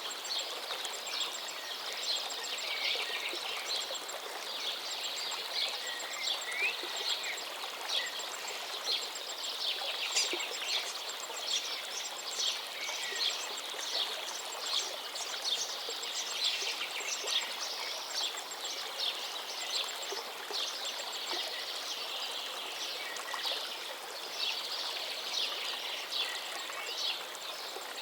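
Many small birds chirping and calling without pause, in quick short notes, over the steady rush of river water.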